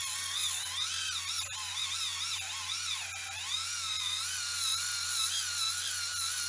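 Small battery-powered Kemei electric callus remover whining steadily as its rotating roller grinds hard skin off the sole of a foot. Its pitch wavers up and down, dipping briefly now and then.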